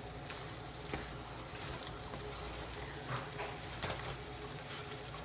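Wooden spatula stirring thick rava kesari, semolina cooked in plenty of ghee, in a pan on the stove: a faint steady sizzle with a few soft taps and scrapes of the spatula.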